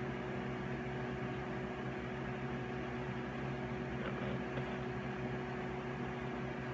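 Steady machine hum: a constant low buzz under an even hiss.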